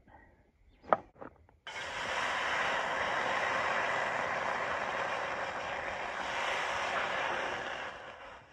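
A sharp click about a second in, then a steady rushing of water poured from a plastic bottle into a steel wok, starting abruptly and tapering off near the end.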